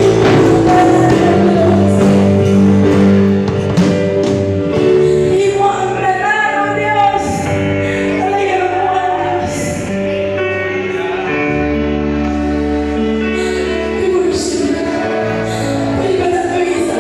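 Live worship song: a woman singing lead through a microphone over keyboard accompaniment, holding long notes.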